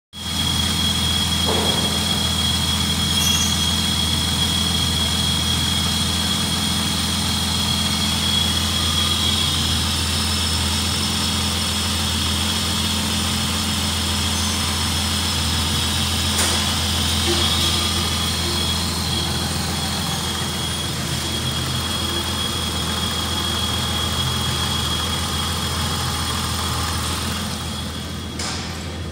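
Holden Statesman's 3.8-litre V6 engine idling steadily, with a thin high whine held over the low engine hum.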